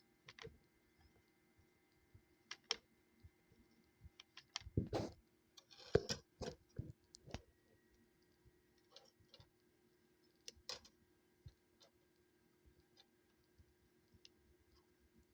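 Scattered light clicks, taps and knocks of small plastic multimeter parts and hand tools being handled during a repair, with a short rustle or scrape about six seconds in.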